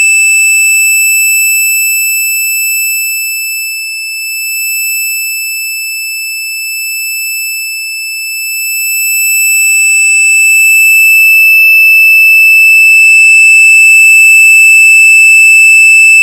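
Loud, steady, high-pitched electronic tone with a shrill overtone edge, a sound effect made to be as annoying as possible. It holds one pitch throughout, eases off somewhat for several seconds and then swells back to full loudness about ten seconds in.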